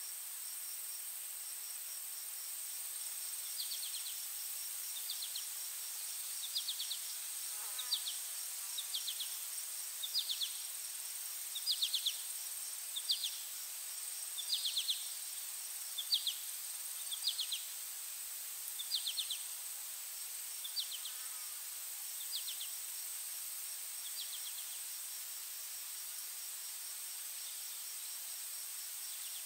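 Insects in a meadow: a steady high-pitched drone, with short pulsed chirps about every second and a half that start a few seconds in and die away about three-quarters of the way through.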